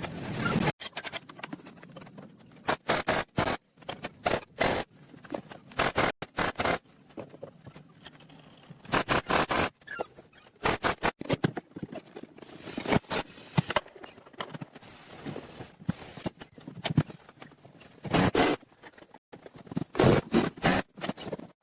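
Irregular short bursts of scraping and tapping.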